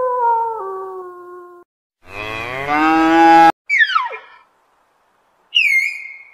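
A string of separate animal calls: a held call that steps down in pitch and fades, then a cow mooing about two seconds in, the loudest sound. A short, sharply falling squeal and a high call near the end follow it.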